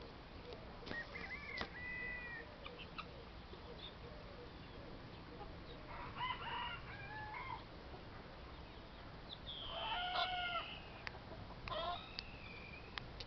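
Poultry calling: short pitched calls about one, six and twelve seconds in, and a rooster crowing about ten seconds in, the loudest call.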